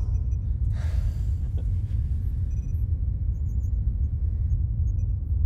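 Steady deep rumble of a spaceship's engine ambience, with a soft whoosh about a second in.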